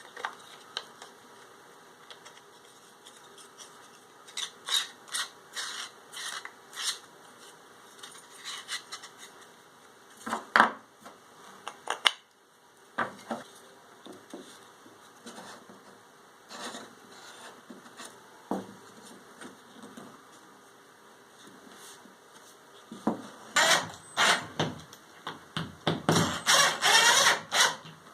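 Hand work on small plywood and metal parts: scattered light knocks and clicks. Near the end come a run of quick rubbing and scraping strokes.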